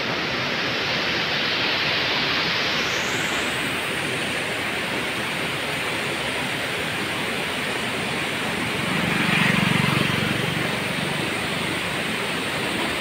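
Steady rushing of water released through the gates of a river barrage. A low rumble swells briefly about nine seconds in.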